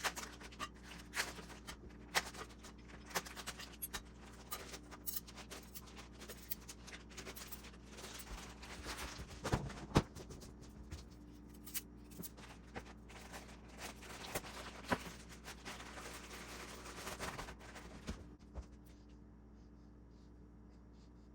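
Hand work with tools and small parts: a run of light clicks, taps and scrapes, the loudest knocks about ten seconds in. The handling stops about eighteen seconds in, leaving a low steady hum.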